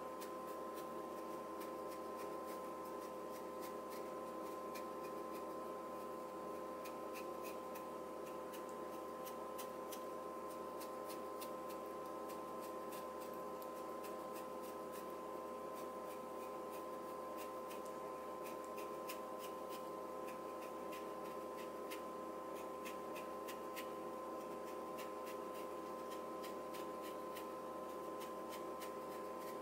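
Paper towel rubbed along the steel blade of a yanagiba knife: a dry, scratchy rustle made of many small irregular clicks. A steady hum with a few clear tones runs underneath.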